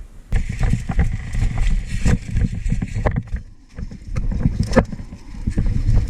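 Rumbling, buffeting noise on a head-mounted camera's microphone, with scattered irregular clicks and knocks; it drops away briefly about halfway through.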